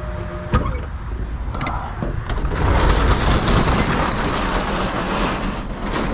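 Roll-up rear door of a 28-foot freight trailer being unlatched and raised: a sharp clack about half a second in, then a long noisy rumble as the door rolls up, loudest in the middle and easing off near the end.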